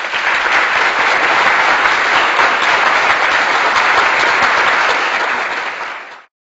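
Crowd applause: many hands clapping in a dense, steady patter that dies away near the end.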